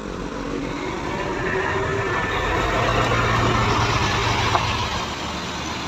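Engine of an intercity coach moving off close by, growing louder to a peak a few seconds in and then easing off as the coach draws away.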